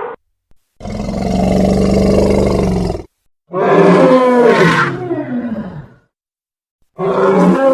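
Three separate animal roars with short silences between them. The first is long and rough, the second rises and falls in pitch, and the third begins near the end.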